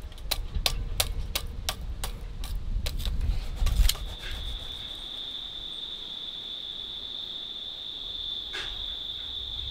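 Metal tongs clink and knock against lumps of charcoal in a clay coal stove, a sharp click about three times a second, the last one the loudest. From about four seconds in, a steady high-pitched insect trill, like a cricket's, takes over.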